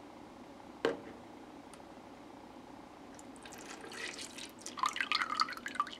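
Roasted barley tea poured from a stainless steel kettle into a plastic pitcher. The stream of liquid starts splashing about three seconds in and grows louder as it goes. A single sharp knock comes about a second in.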